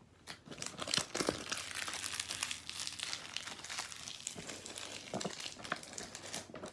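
Toy packaging crinkling and rustling in the hands as a Dragon Ball Super Spin Battlers box is being opened, a dense run of small crackles and clicks.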